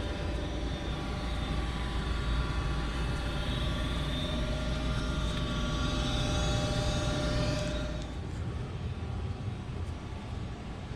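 Goodman 95% AFUE gas furnace running: a steady low hum and rush of air with a faint steady whine. The whine and some of the noise drop away about eight seconds in, leaving the low hum.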